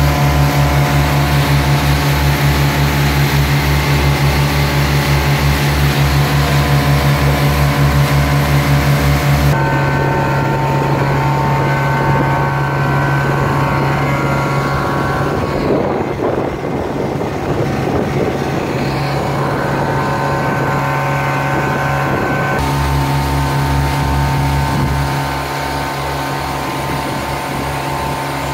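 Bulk feed lorry's blower and engine running steadily, blowing cattle feed nuts through a hose into a ship, a loud drone with a low pulse of about four beats a second. The tone changes abruptly about ten seconds in and again near the end.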